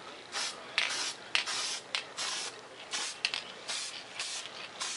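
Aerosol spray paint can hissing in a quick series of short bursts, about two or three a second.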